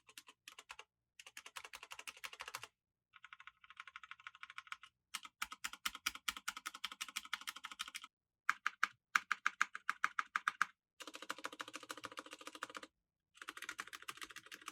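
Fast typing on an EVGA Z15 full-size mechanical keyboard with Kailh linear switches, a rapid stream of key clicks and keycap clacks. It comes in several runs of a second or two each, broken by short pauses.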